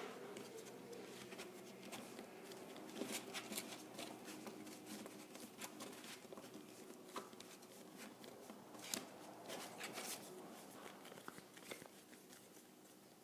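Faint scattered taps and rustles of hands pressing and shaping Play-Doh on a plate.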